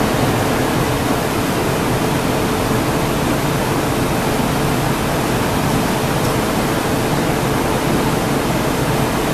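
Steady rushing noise of a glassblowing hot shop, from its gas-fired furnaces and large cooling fans, with a faint steady hum underneath.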